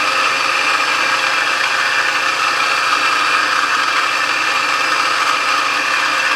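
Mazzer Mini flat-burr espresso grinder running and grinding coffee beans: a loud, steady motor drone with a gritty grinding noise. This is a test grind at a fine setting close to the burrs' zero point, made while dialling in the grinder.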